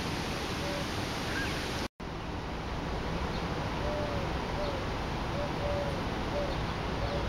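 Steady outdoor background noise, with faint short bird calls recurring through the second half. The sound drops out for an instant about two seconds in.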